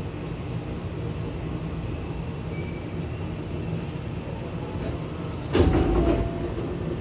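Hankyu train's double sliding passenger doors opening at the terminus: a steady low rumble inside the stopped car, then a sudden loud clatter and rush about five and a half seconds in as the doors slide apart.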